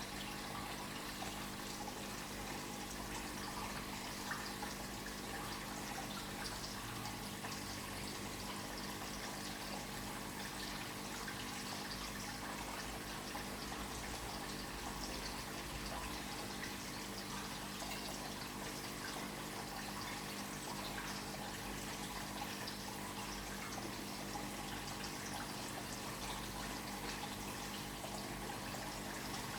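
Aquarium water trickling and splashing steadily, as from a filter outflow, over a steady low hum.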